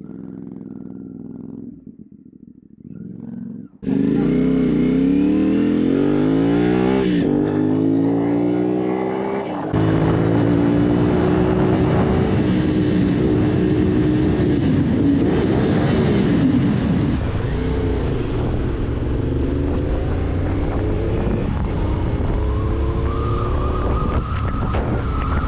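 CFMoto 450 parallel-twin engine through a new aftermarket exhaust with the dB killer removed, running quietly at first, then about four seconds in revving hard as the bike pulls away, its pitch rising and falling through the gears. From about ten seconds in it runs on at speed under heavy wind noise, the pitch climbing again near the end.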